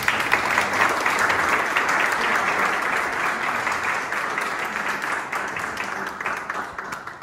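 A small audience clapping: dense applause that starts at once and dies away near the end.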